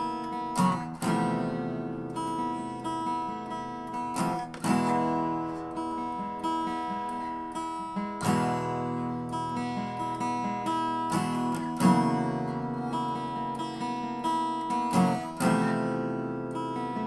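Background music: acoustic guitar, strummed chords ringing between strums.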